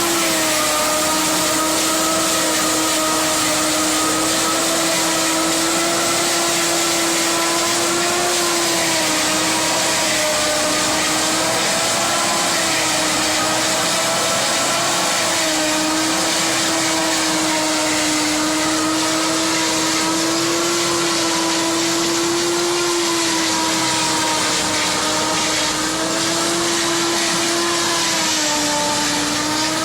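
Kubota ME 9000 tractor driving a Fimaks row-independent silage harvester: a loud steady machine noise with a high whine that dips slightly in pitch a few times.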